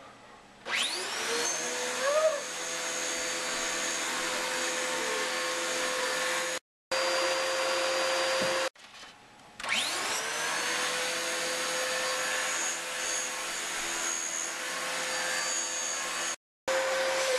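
Dyson upright vacuum cleaner switched on: its motor spins up with a quick rising whine and runs steadily. It stops about nine seconds in, then is switched on again and spins up the same way, and the sound drops out abruptly for a moment twice.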